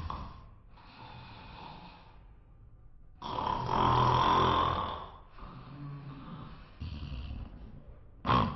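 A man snoring in his sleep: several long snores in a row, the loudest about three seconds in.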